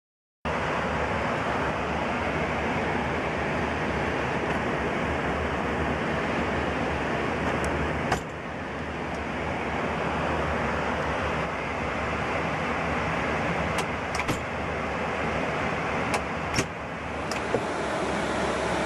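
Steady rushing noise of an airliner cockpit in flight, with a few brief clicks about halfway through and again near the end.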